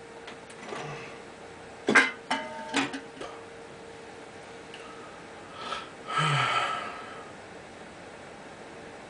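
A metal drink can set down on a hard surface: a few sharp clanks with a short metallic ring. About six seconds in comes a short throaty exhale.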